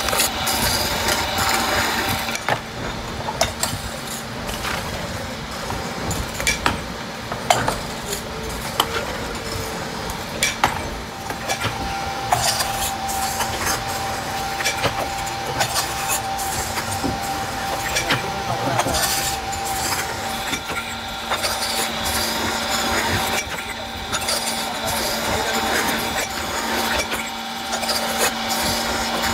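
Roller seaming machine spinning an oil filter can, running with a steady hum, with scattered metal clinks and knocks.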